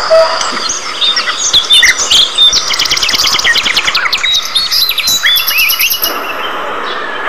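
Budgerigars chattering as a flock, with many quick overlapping chirps and warbles that thin out near the end.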